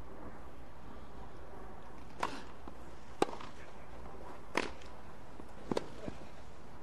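Tennis ball struck back and forth by rackets in a rally: four sharp pops about a second apart from about two seconds in, the last one doubled, over a steady low crowd hush.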